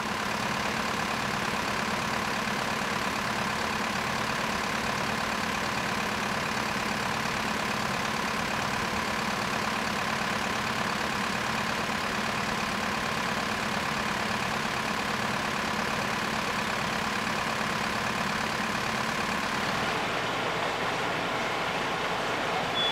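Mercedes-Benz Atego fire engine's diesel engine running steadily with a constant hum, no revving; the sound shifts about 20 seconds in.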